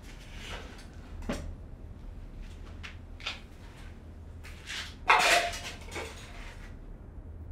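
Scattered knocks and clicks of objects being handled, with a louder scraping sound about five seconds in, over a steady low hum.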